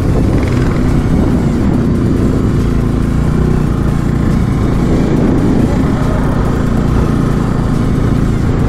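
Bajaj Pulsar NS200's single-cylinder engine running steadily at highway speed, with a haze of wind noise over it.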